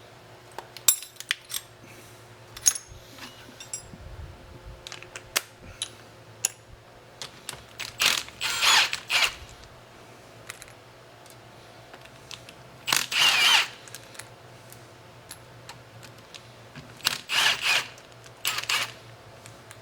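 A cordless power driver backing out the bolts on the mill table's end plate in several short bursts, each under a second, with small metallic clicks and clinks of tools and parts in between.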